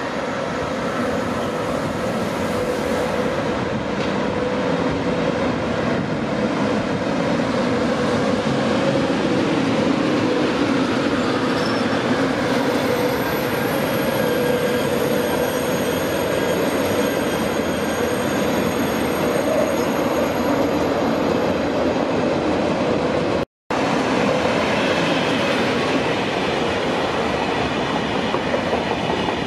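TGV high-speed electric trainsets, a TGV Duplex and then a TGV Atlantique, passing on the line: a steady rumble of steel wheels on rail with a steady whining tone above it. The sound cuts out for a split second about three-quarters of the way through.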